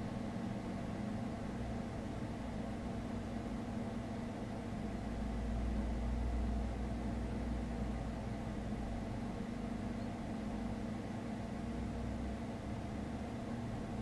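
Steady low mechanical hum with a low rumble underneath that swells for a couple of seconds about five seconds in.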